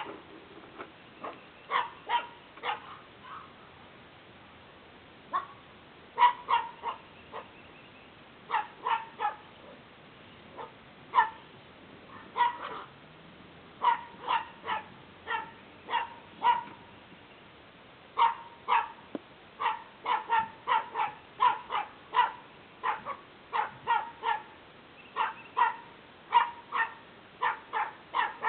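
Small dogs barking in short, high-pitched yaps, mostly in quick runs of two to four, over and over.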